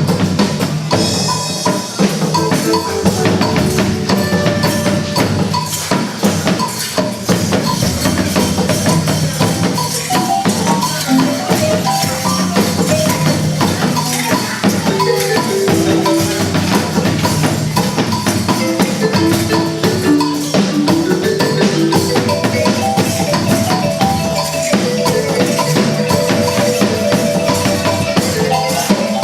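Music with dense, fast percussion (rattles and wood-block-like strikes) under a melody that steps up and down.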